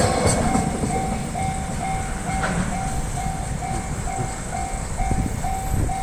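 Level-crossing electronic warning bell ringing steadily, about two chimes a second. The rumble of the freight train's last wagons clearing the crossing dies away in the first half second.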